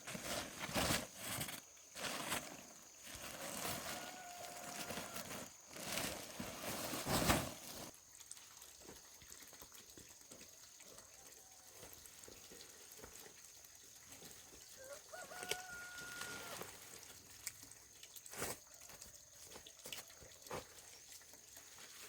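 Rustling and thumps during the first several seconds, then a quieter stretch in which a rooster crows faintly twice, once about four seconds in and once about fifteen seconds in.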